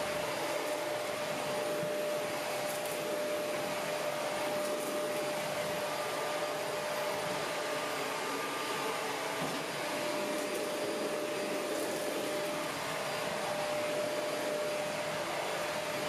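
Shark Rotator Professional Lift-Away (NV501) upright vacuum running steadily with a constant motor whine as it sucks up granola from a hardwood floor.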